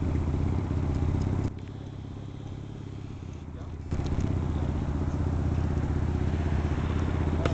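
An engine idling with a steady low rumble. It drops away for a couple of seconds about one and a half seconds in, then comes back.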